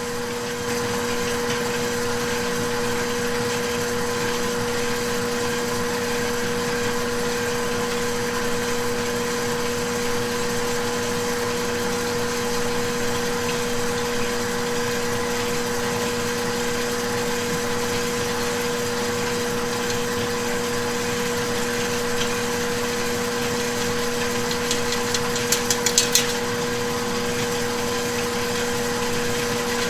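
Steady motor hum of kitchen machinery running, an even drone with a constant low tone. Near the end comes a brief run of a few sharp metallic taps.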